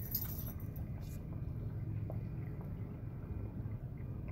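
Small motorboat under way on a lake: a steady low rumble.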